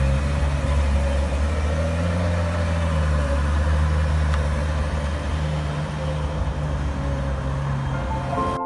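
Ferrari 812 Superfast's V12 engine running at low revs as the car pulls out and drives away, a deep steady note that rises and falls slightly in pitch.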